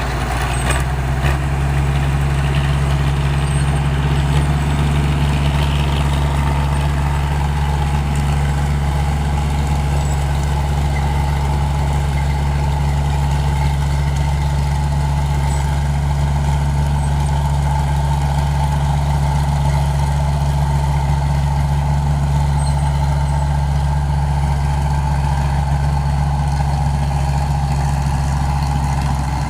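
Large diesel engine of a 225 HP rice combine harvester running steadily with a deep, even hum.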